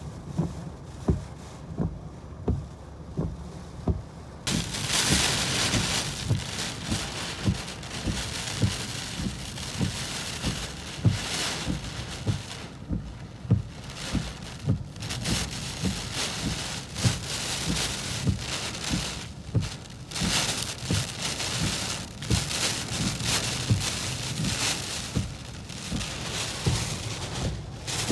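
Wind-driven heavy rain beating on a car in a storm strong enough to rock it. About four seconds in, a gust brings a sudden surge of loud rain hiss that keeps coming in waves. Short low thuds repeat about twice a second throughout.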